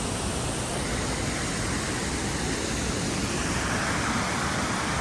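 Waterfall crashing: a loud, steady rush of falling water.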